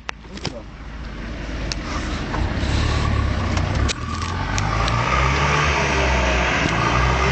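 A large vehicle engine runs, with a few sharp clicks at the start. It grows louder over the first three seconds, then holds steady.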